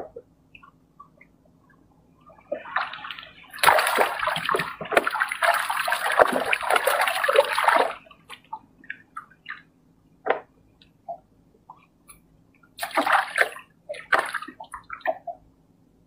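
Water splashing and sloshing in two spells: a long one that builds from about two and a half seconds in and stops abruptly around eight seconds, and a shorter one near the end, with scattered small splashes and drips between.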